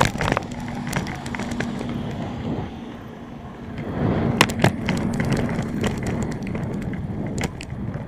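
Folding bicycle rolling along a rough, cracked road: steady tyre and road rumble with scattered rattles and clunks of the bike over bumps, and two sharper knocks about four and a half seconds in.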